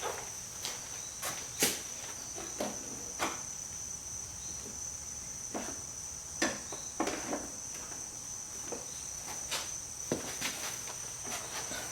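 Light metal clicks and taps of hand tools working the hub's sliding barrel and retaining ring, about a dozen scattered and irregular, over a steady high-pitched whine.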